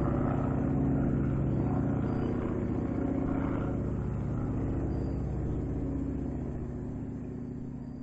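Small propeller airplane's piston engine running steadily with an even, rapid pulse, gradually fading away.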